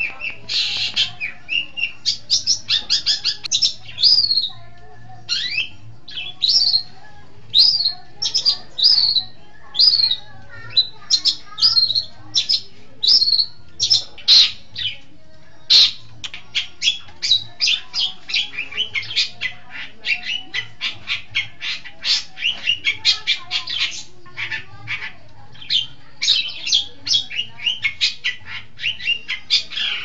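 Long-tailed shrike (cendet) singing: a fast, near-continuous stream of short high notes and quick trills, broken by brief pauses between phrases.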